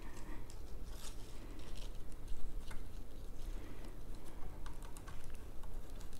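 Hands setting a trimmed Curcuma ginger flower stem into an ikebana arrangement: light rustling of stems and foliage with scattered small clicks and taps.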